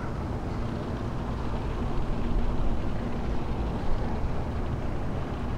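Low, steady rumble of the dry-cargo river ship Volgo-Don 5069 motoring past, with a faint engine hum in the middle.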